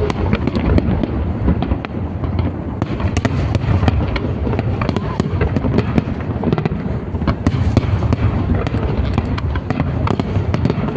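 Fireworks going off in a dense, continuous barrage: many overlapping sharp bangs and crackles over a steady low rumble.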